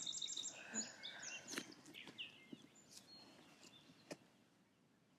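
Wild birds chirping: a quick run of high chirps in the first second, then scattered calls, with a few faint clicks, fading to near silence near the end.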